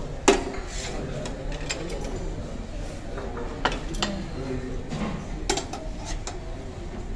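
Dishes and cutlery clinking at a breakfast buffet: a sharp clink just after the start and a few more later, over a low murmur of voices.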